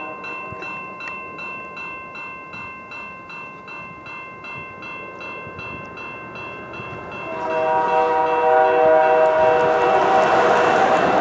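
A crossing bell rings about three times a second. About seven seconds in, the horn of a GE AC4400CW locomotive blows a loud, long chord over the growing rumble of the approaching train.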